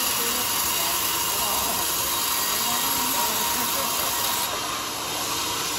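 Band sawmill blade cutting lengthwise through a large teak log: a steady, dense noise of the running saw and the blade in the wood, easing slightly near the end.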